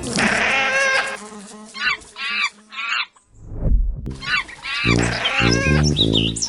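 Animal calls: rapid high chirping and squeaking cries, broken by a short lull with a low thud about halfway, then chirping again over low, evenly repeated tones near the end.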